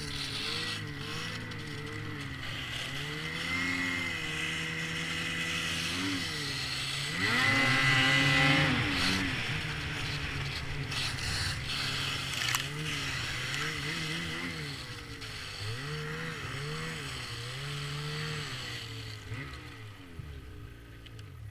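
Snowmobile engine running, its pitch rising and falling again and again as the throttle is worked. It is loudest about seven to nine seconds in and fades away near the end.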